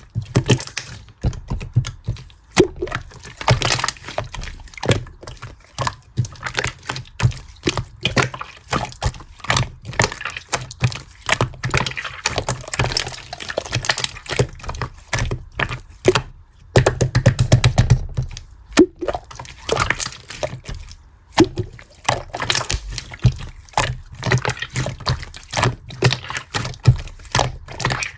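Hands squishing, folding and stretching a marbled slime, making many quick, irregular wet clicks and pops.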